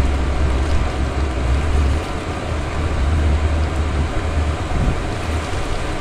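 Chinese diesel air heater burning steadily at its exhaust: a low, uneven combustion rumble under a steady hiss. The burner is firing cleanly again as it burns off leftover whiskey fuel.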